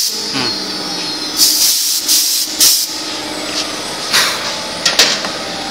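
Double-spindle CNC router running in the workshop: a steady hum with a held tone, broken by four short bursts of hiss, the longest about a second and a half in.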